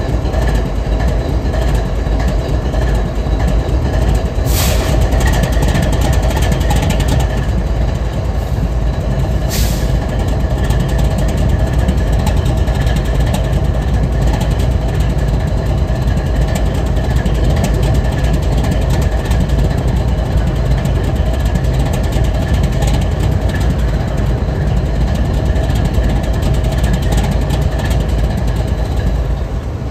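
BNSF diesel freight locomotives idling with a steady low rumble. Two short hisses come about four and a half seconds and ten seconds in.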